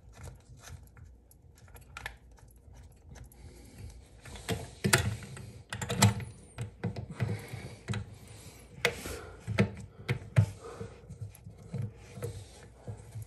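Hands working a toilet's water supply fittings under the tank, making irregular clicks, taps and small knocks of plastic and metal parts, busier from about four seconds in.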